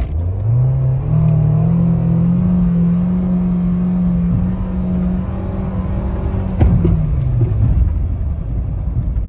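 2015 Nissan Sentra's 1.8-litre four-cylinder engine revving up under throttle through its CVT. The pitch climbs over about two seconds, holds steady for several seconds, then drops back, with one sharp knock about six and a half seconds in. The driver takes the car's bogging as a sign of a faulty transmission.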